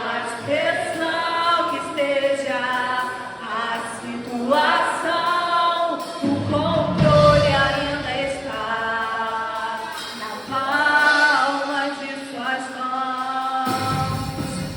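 Worship singing: sustained sung vocal lines, joined by a low instrumental accompaniment about six seconds in that drops out shortly before the end.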